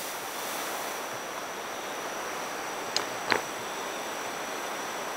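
Steady rushing background noise, with two short clicks about three seconds in and a faint steady high whine.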